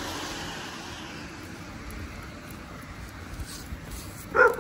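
A vehicle passing on a wet road, its hiss fading away, then near the end a husky gives a short, loud vocal 'talking' call.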